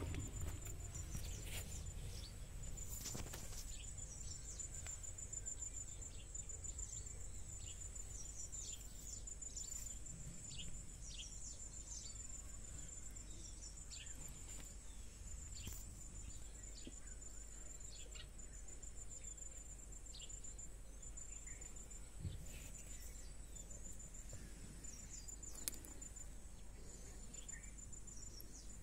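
Outdoor ambience: a faint, high-pitched insect trill pulsing steadily, with scattered short bird chirps over it.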